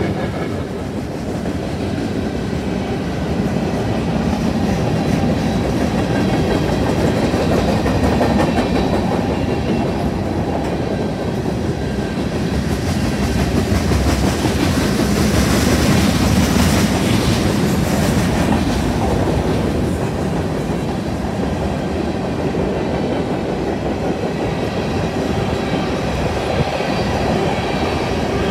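A long freight train's cars rolling past on steel wheels, with a steady rumble and rattle of wheels on rail. It grows louder and brighter for a few seconds past the middle.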